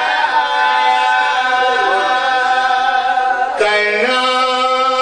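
A man singing long, drawn-out held notes of a chanted Punjabi verse in zakiri majlis recitation. The pitch steps down about three and a half seconds in.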